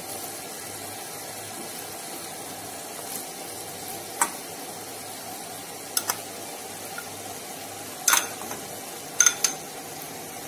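Cooked cluster beans sizzling steadily in a stainless-steel pan, with a few sharp clinks of a spoon as ground dal paste is spooned in, about four to eight seconds in.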